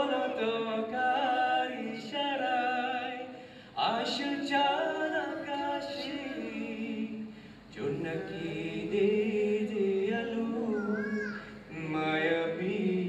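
A man singing an unaccompanied Bengali melody, with a wavering, ornamented line in long phrases broken by brief breaths.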